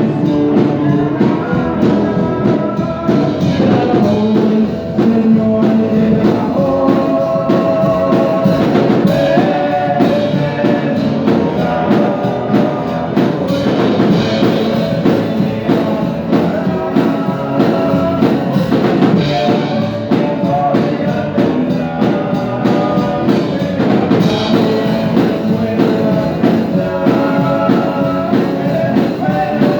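Music: a song with singing over a band with drums.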